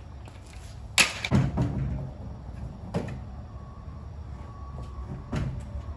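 Knocks and clatter of tools and a tire being handled and unloaded from a pickup truck's bed. The loudest bang is about a second in, with a few smaller hits right after it and further knocks about three seconds and just over five seconds in.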